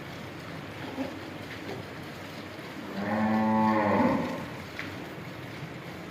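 A cow moos once, a single low call of about a second and a half, about halfway through.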